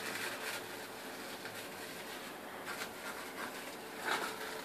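Faint, scattered crinkling and rustling of a folded aluminium-foil hookah cap being handled, over a low steady room hum.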